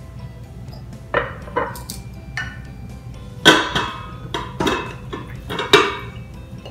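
A glass mixing bowl and spatula clinking and knocking against the stainless steel inner pot of an Instant Pot as marinated chicken wings are scraped into it. About nine sharp clinks with brief ringing, the loudest about halfway through and another near the end.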